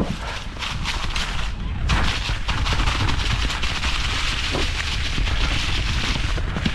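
Wind buffeting on the microphone and the Specialized Kenevo SL 2 e-mountain bike rattling over a rough, rocky trail at speed, with a dense run of knocks and clatters from the tyres and frame.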